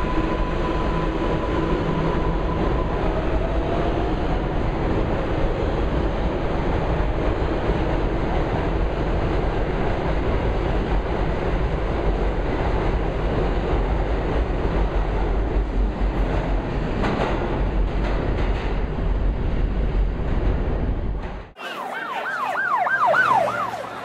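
A New York City subway train running past a station platform and picking up speed, a steady loud rumble of wheels and cars with a faint whine rising in pitch in the first few seconds. The rumble cuts off suddenly near the end and a warbling, siren-like tone that swoops up and down takes its place.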